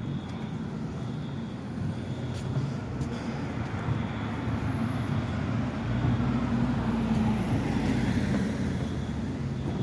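Street traffic noise: a steady rumble of road vehicles, swelling louder and deeper about six seconds in as a vehicle passes.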